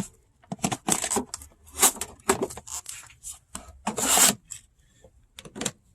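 A series of short, irregular scraping and rubbing strokes, the longest about four seconds in.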